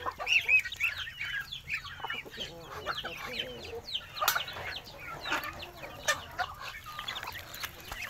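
Farmyard chickens clucking among a crowd of young chicks peeping, many short high peeps overlapping one another. Two sharp clicks stand out, one a little past the middle and one about two seconds later.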